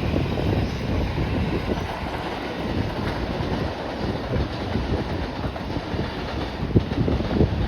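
Electric passenger train running on the rails: a steady rumble of wheels with many short, irregular knocks.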